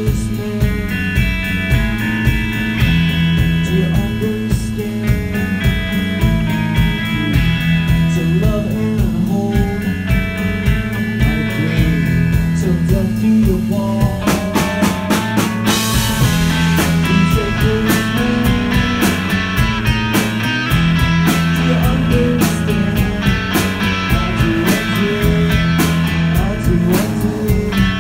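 Live rock band playing: electric guitars, bass guitar and drum kit, amplified through guitar amps. About halfway through, the drums build into a crash cymbal hit, with busier cymbals after.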